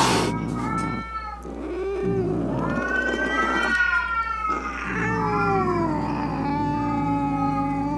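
Domestic cat yowling angrily: a run of drawn-out, wavering calls, the last one long and held. A brief sharp noise comes right at the start.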